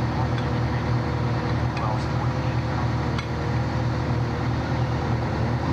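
Fire engine running steadily at idle, a continuous engine hum. A few light metallic clinks from hose couplings being handled at the hydrant fall over the first three seconds.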